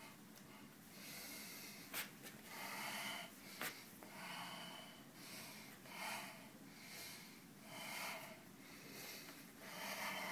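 A person breathing close to the microphone, short audible breaths coming about once a second, with two brief sharp clicks in the first few seconds.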